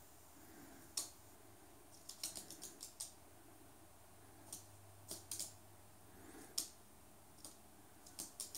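Rainbow lorikeet's claws tapping and clicking on a hard floor as it walks and hops: light, irregular clicks, single and in short runs of three to six.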